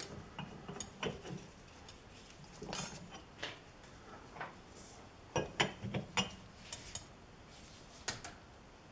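Scattered light metallic clicks and clinks from adjusting the jaws of a four-jaw lathe chuck, with a quick cluster of them about five and a half seconds in.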